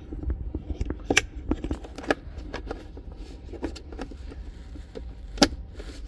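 Tire inflator's power cord and 12-volt plug being handled at a car's console socket: scattered light clicks and rattles, with one sharp click about five and a half seconds in.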